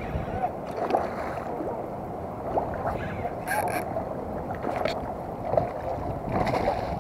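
Hooked mangrove jack splashing at the water surface as it is reeled in to the bank, with two short bursts of splashing, about halfway through and near the end, over a steady background of distant voices.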